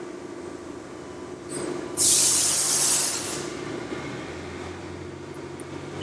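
Compressed air hissing from a benchtop pneumatic crimping press's air valve as its air cylinder is worked: a loud burst starts suddenly about two seconds in and tapers off over about a second and a half.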